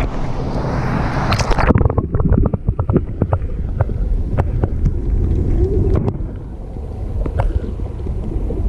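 Wind rushing on the microphone above the water, then a splash about a second and a half in as the camera goes under. After that the sound is the muffled underwater sound of the lake: a low rumble of moving water with many scattered clicks and pops.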